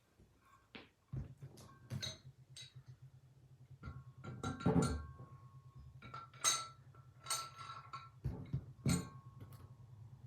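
Steel parts of a Craftsman 4-inch bench vise clinking against each other and the bench as they are picked up and fitted during reassembly: a string of irregular sharp metal clinks, several ringing briefly. A faint steady low hum runs underneath from about a second in.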